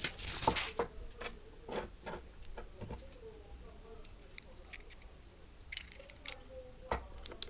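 Paper rustling briefly at the start, then scattered light clicks and taps of the small steel parts of a bullnose hand plane, its iron and body, being handled and fitted together on a wooden bench. The sharpest click comes near the end.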